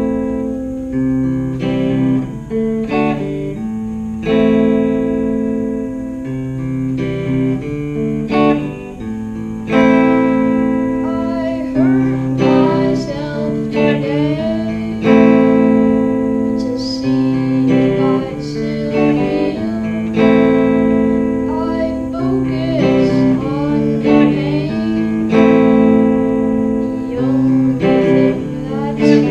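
Semi-hollow electric guitar playing slow strummed chords that ring out every couple of seconds, with a boy's voice singing over them from about the middle onward.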